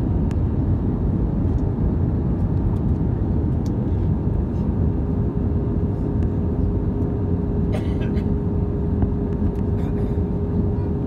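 Steady cabin noise of an Airbus A320-214 in flight: the low roar of its CFM56 engines and the airflow, heard from a window seat. A steady whining tone joins about halfway through.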